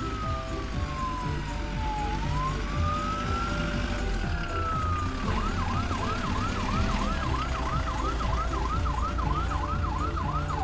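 Ambulance siren wailing in slow falling and rising sweeps, then switching about halfway through to a fast yelp of about three sweeps a second.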